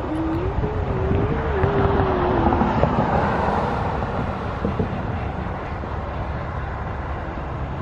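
Steady low rumble of a long freight train of tank cars rolling away on the rails, swelling for a few seconds and then easing. A wavering tone sounds over it for the first couple of seconds.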